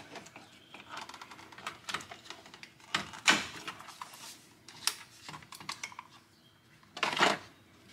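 Scattered light clicks and knocks of hard plastic interior trim and connectors being handled around a pickup's steering column. There are two louder short scraping rustles, about three seconds in and again near the end.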